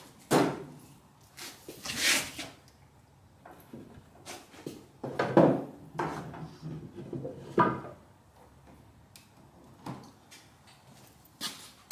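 A series of separate wooden and metal knocks and clunks, about half a dozen spread over the stretch, as things are handled and set down at the bandsaw.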